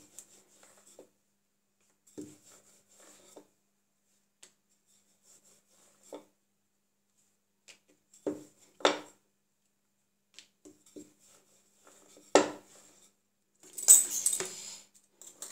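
Scattered knocks and taps of kitchen tools on a hard tabletop while dough is rolled out with a wooden rolling pin, the two loudest about 9 and 12 seconds in. Near the end comes a brief metallic clatter as a metal pastry-cutting wheel is picked up.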